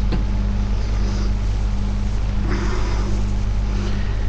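A steady low hum with a constant background hiss.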